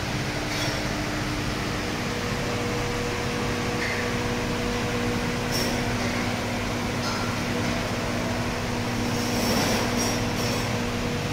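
Steady mechanical hum and rushing noise, with a few faint clicks.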